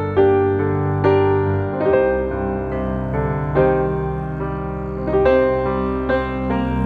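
Background piano music: a slow melody of struck notes, a few a second, over held low notes.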